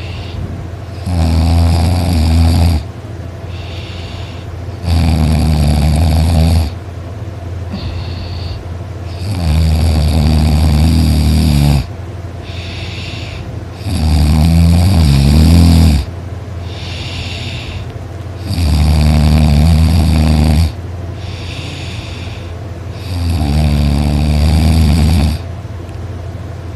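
A person snoring very loudly: six long snores, each lasting about two seconds, coming about every four and a half seconds.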